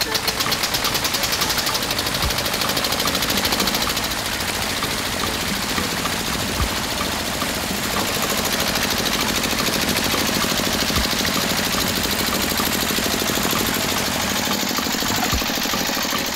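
Small motor of a miniature model water pump running steadily, with a fast, even rattling buzz as it pumps water.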